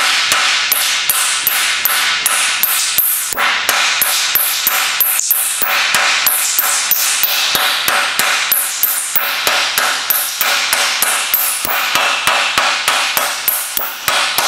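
Mallet striking a raised tuck on the edge of a sheet-steel panel resting on a wooden block, in a fast steady run of about four blows a second: the tuck is being hammered down to shrink the edge.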